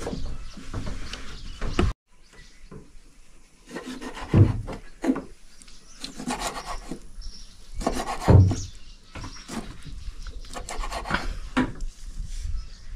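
Fishing gear being handled and knocked about in a boat: irregular rubbing and scraping with a few dull thumps, the loudest about four and eight seconds in.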